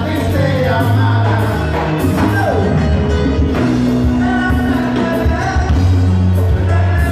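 Live band music with a male lead singer: electric guitars, drum kit, hand percussion and keyboard playing together at full volume.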